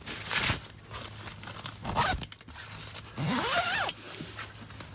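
Rooftop tent zipper being zipped shut in several short pulls, with rustles of tent fabric. The longest pull, about three seconds in, rises in pitch as it speeds up.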